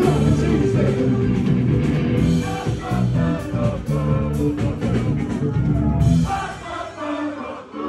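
A live funk band playing, with drum kit, electric guitar and bass. Near the end the drums and bass drop away for about a second and a half, leaving a few held notes.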